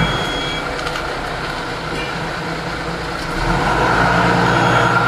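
A heavy truck's diesel engine running steadily. It drops slightly in level just after the start and rises again after about three seconds.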